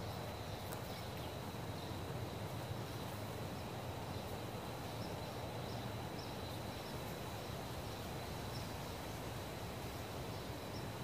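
Outdoor ambience of a grassy, wooded yard: a steady hiss with a thin, steady high tone and faint short chirps repeating through the second half, from insects and birds.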